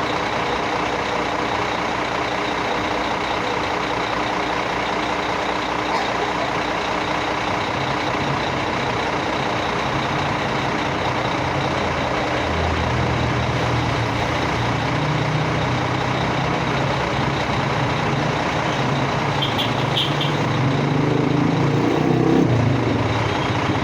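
Heavy vehicle engine running steadily, its low drone growing louder about halfway through and peaking near the end.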